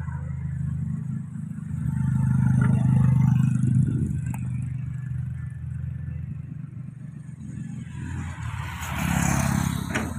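Komatsu hydraulic excavator's diesel engine running steadily, swelling louder about two seconds in and again near the end as the machine works the boom and bucket. A brief rushing noise comes in near the end.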